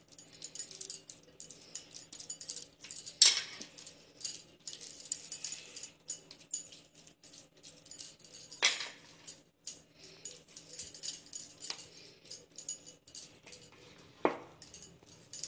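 Bangles jingling and clinking on the wrists as hands roll mashed potato into balls over a steel plate, with three louder clinks spread through, over a faint steady hum.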